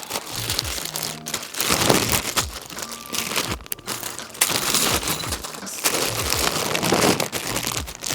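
Rustling and crinkling as button-maker parts and paper are handled, in several bursts with small clicks and knocks between them.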